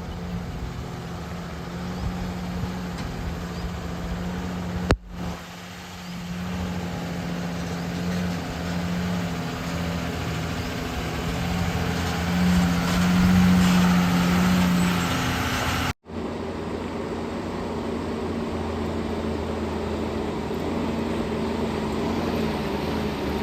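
Diesel engine of a JCB 3DX backhoe loader running steadily and working harder for a few seconds near the middle, with two sudden breaks in the sound.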